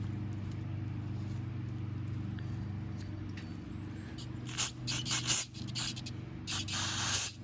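Aerosol brake cleaner hissing as it is sprayed onto a carburetor float needle: several short bursts from about halfway, then a longer spray near the end, over a steady low hum.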